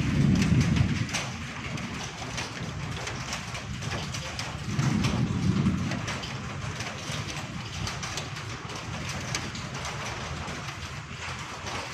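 Small volcanic stones and ash falling, a steady pattering of many small ticks, with two low rumbles, one at the start and one about five seconds in.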